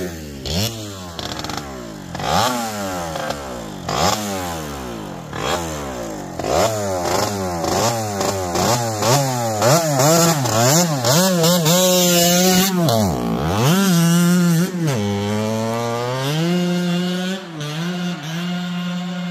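1989 Kawasaki KX80 80cc two-stroke dirt bike engine revving up and dropping back again and again, about once a second, for the first ten seconds or so. It then falls away briefly and holds a steadier high pitch near the end.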